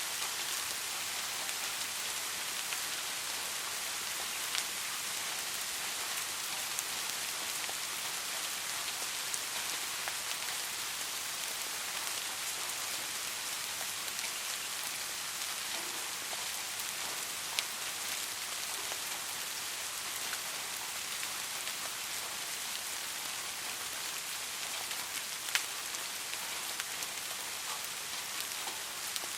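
Steady rain falling, a continuous even hiss with scattered drop ticks and a few sharper single drops.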